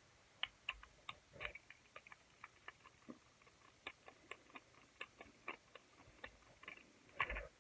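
Light, irregular plastic clicks and taps, about two or three a second, as a motorized toy train engine is handled and fitted, with a slightly louder knock near the end.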